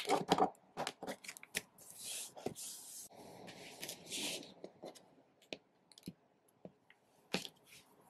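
Tarot cards being handled on a wooden tabletop: a quick run of taps and clicks as decks are picked up and set down, two soft papery swishes of cards sliding, and one sharp tap near the end.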